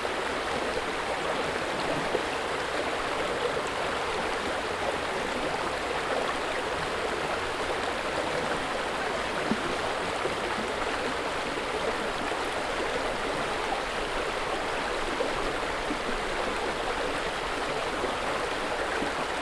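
River water flowing and babbling steadily, an even rushing noise with no let-up.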